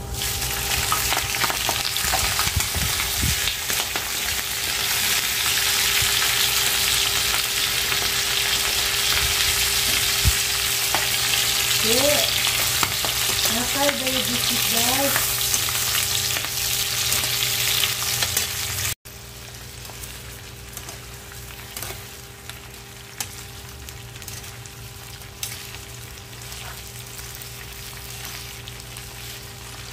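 Raw shrimp hitting hot oil with garlic in a frying pan: a loud sizzle bursts up at once and keeps hissing as they fry. A metal spatula stirs and scrapes through them, and about two-thirds of the way in the sizzle drops to a quieter frying hiss with occasional clicks.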